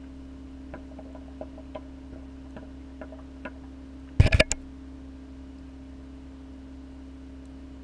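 Steady low hum of reef-aquarium equipment, with scattered faint ticks and, about four seconds in, a quick cluster of loud sharp knocks.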